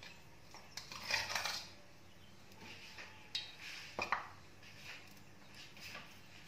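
A few quiet clinks and scrapes of a utensil and bowl against a ceramic plate as mustard paste is put onto pieces of raw hilsa fish. They are loudest about a second in and again around three to four seconds in.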